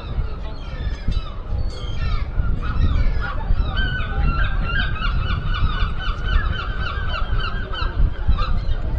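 A gull calling: a long run of rapid, repeated honking notes, loudest from about three and a half seconds in until near the end, over a steady low rumble.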